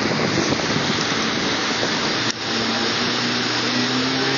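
Heavy wind noise on the microphone and the rush of water from a motorboat running at speed. From about halfway, a steady low engine hum comes through underneath.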